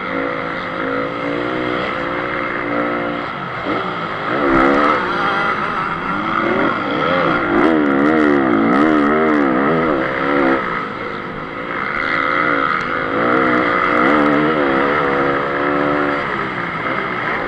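Honda CRF250 motocross bike's single-cylinder four-stroke engine at race pace, revs rising and falling with throttle and gear changes, warbling quickly up and down around the middle. A few sharp clicks sound about halfway through.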